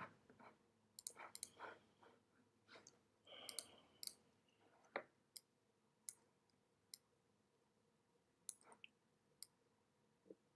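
Faint, sharp clicks from working a computer's controls, about fifteen at irregular intervals, with a brief soft rustle about three seconds in.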